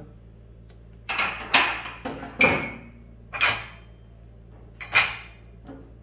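Cups knocking and clinking against a dishwasher's wire rack and each other as they are set upside down into it, about five short clattering knocks.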